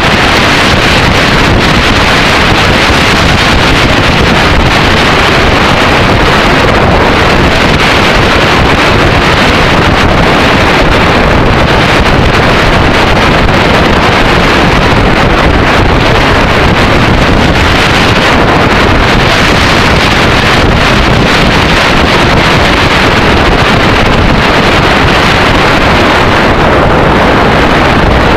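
Steady, loud wind rush on the microphone of a camera on a motorcycle at road speed, with the Yamaha XT600E's single-cylinder engine running underneath.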